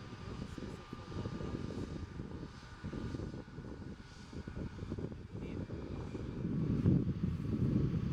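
Airbus A330-200's jet engines running, heard at a distance as a low rumble with a faint steady whine, growing louder near the end.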